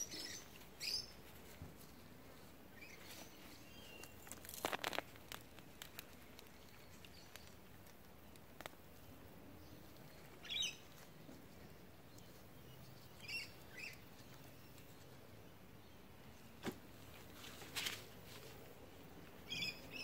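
Faint scraping and rustling of a gloved hand digging through loose soil and dry straw mulch, with a few sharp clicks. Short bird chirps come now and then.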